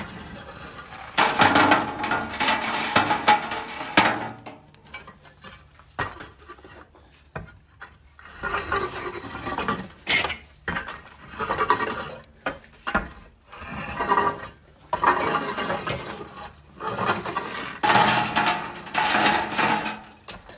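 Glowing pine and oak embers being raked out of a wood-fired brick bake oven with a long-handled ember rake: repeated scraping strokes across the oven floor, roughly one every two seconds, as the coals are pulled out and dropped into the pit below. This is the emptying of the oven before baking.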